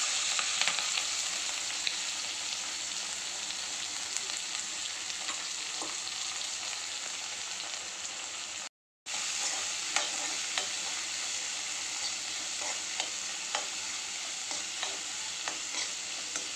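Chopped onions and green chillies sizzling in hot oil in a black iron kadai: a loud sizzle as they drop in, easing a little into a steady frying hiss. In the second half a metal slotted spatula stirring them clicks and scrapes against the pan, and the sound cuts out briefly just past halfway.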